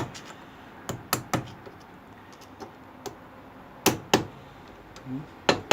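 Sharp hammer blows on steel in small groups of two or three, a few ringing briefly: the new rear hub bearing of a Lada Kalina being tapped into place by hand, gently, without a puller.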